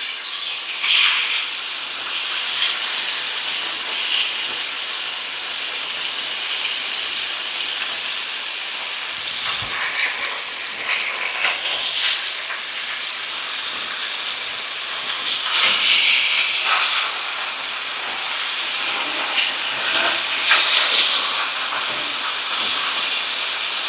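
Breaded chicken cutlets pan-frying in oil, sizzling steadily, with several louder surges of sizzle and spatter.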